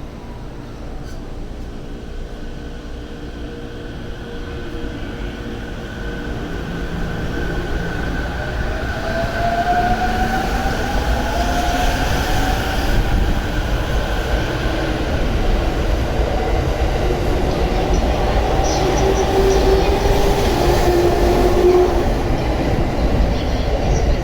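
E231 series electric commuter train pulling away from a station: its VVVF inverter traction motors whine in tones that climb in pitch as it accelerates, over a rail rumble that grows steadily louder.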